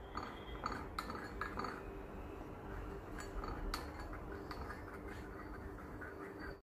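A metal teaspoon clinking lightly and irregularly against a cup as a spoonful of honey is added to bay leaf tea. The sound drops out abruptly right at the end.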